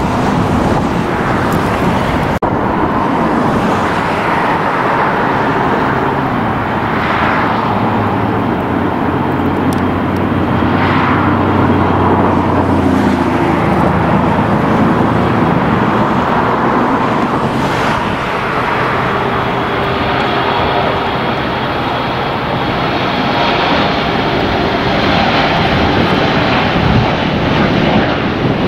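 Jet airliner engines: a steady loud roar with a faint whine over it.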